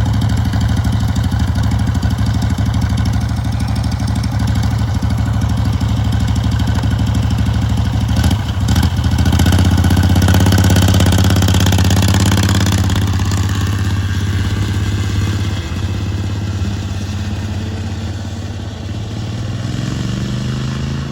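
Racing lawnmower's engine running under throttle during a handling run, with a brief clatter about eight seconds in. It is loudest just after that and slowly fades toward the end.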